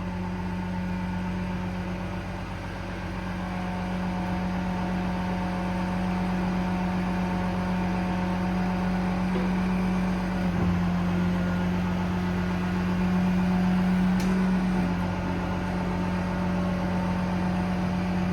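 Paccar PX9 diesel engine running steadily while driving the hydraulic system that powers the Stellar 12630 crane, giving a constant hum. The hum's pitch drops a little for about four seconds past the middle, and there is a faint click near the end.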